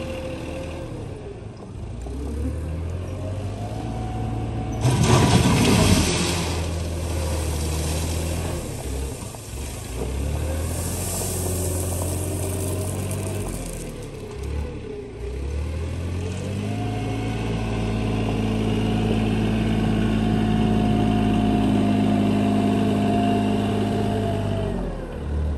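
Small wheel loader's engine revving up and down as it works a gravel pile, with a loud rush of gravel about five seconds in as the bucket digs in. From about two-thirds of the way through, the engine holds a higher, steady note.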